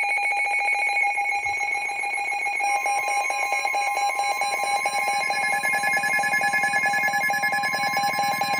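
NOAA Weather Radio receiver sounding its alert: a loud, rapidly pulsing electronic alarm tone, joined about three seconds in by a second steady tone, signalling an incoming severe thunderstorm warning.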